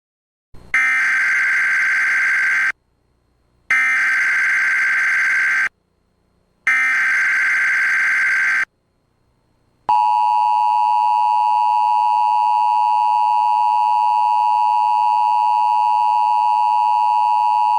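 Emergency Alert System tones for a child abduction alert: three identical data bursts of the SAME header, each about two seconds long with a second's gap between them, then about ten seconds in, the steady two-tone attention signal starts and holds.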